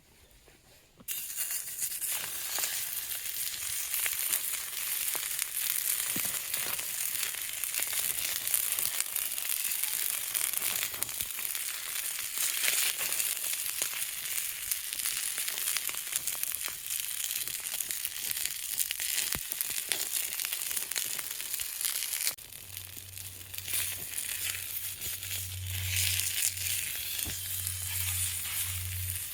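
Food sizzling loudly in a frying pan over a campfire. It starts suddenly about a second in, as if food has just gone into the hot pan. About 22 seconds in it drops to a quieter sizzle with a low steady hum underneath.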